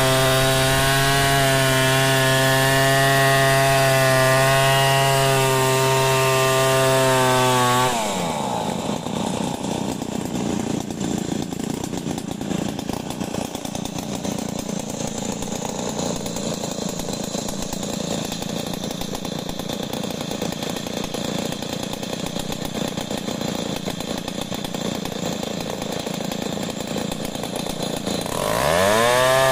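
Stihl 070 two-stroke chainsaw at full throttle, ripping lengthwise through a log to mill boards. About eight seconds in the revs drop sharply and the saw idles roughly for about twenty seconds. Near the end it revs back up to full speed.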